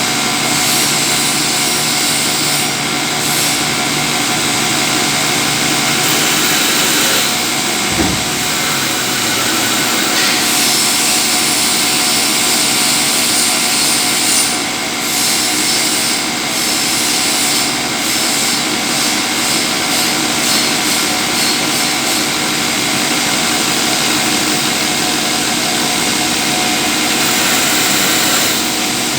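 CNC lathe running steadily while turning a 150 pulley, a continuous loud machine noise with several steady tones over a broad hiss. A brief thump about eight seconds in.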